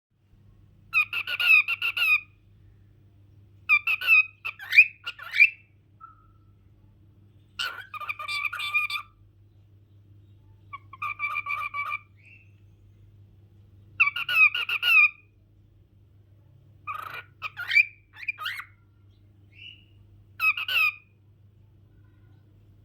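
Pet parrot calling and chattering in about seven short bursts, each a second or two long, spaced a few seconds apart.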